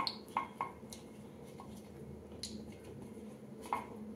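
Silicone pastry brush dabbing and spreading oil in the cups of a hot appe pan: a few faint, light taps and clicks over a low, steady background hum.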